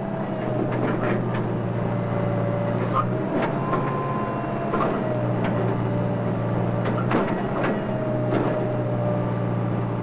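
JCB 3 backhoe loader's diesel engine running steadily while its rear digger arm digs, with a wavering whine above the engine note. Several sharp knocks and clanks come from the bucket working in the hole, and the engine note weakens briefly twice, near the middle and again later.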